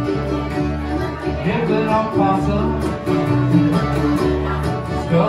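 A bluegrass band playing: upright bass notes on a steady beat under mandolin, acoustic guitar, banjo and accordion.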